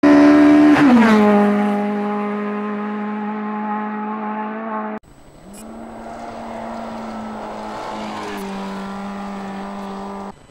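Rally car engines running hard at steady high revs in two separate clips, joined by a sharp cut about five seconds in; the pitch of the first drops about a second in, then holds.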